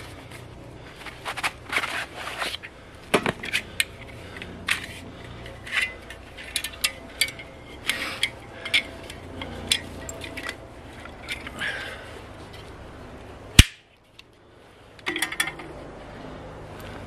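Tools being handled at a log on a sawbuck: irregular sharp knocks and clicks, with one loud click about two-thirds through.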